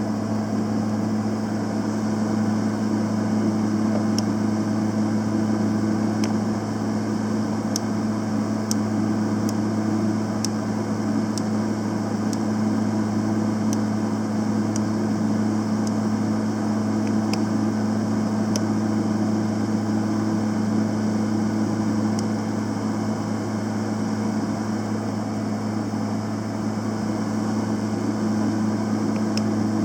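Panasonic YD-350GB2 semi-automatic welder running with a steady, even hum, with scattered sharp ticks now and then in the first two-thirds.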